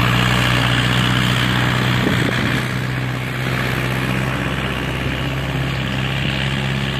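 Hindustan tractor's diesel engine running steadily under load as it hauls two heavily loaded sugarcane trolleys. It holds a constant low note and fades slightly as it moves away.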